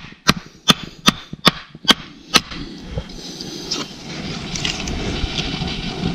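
A run of about seven sharp wooden knocks, a little over two a second, as kindling is split for a campfire; they stop about two and a half seconds in. A steady rushing noise follows.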